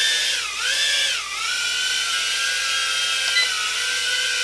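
Holyton HS330 mini quadcopter's motors and propellers whining in flight. The pitch dips twice in the first second and a half as the throttle is eased, then holds steady while it is brought in to land.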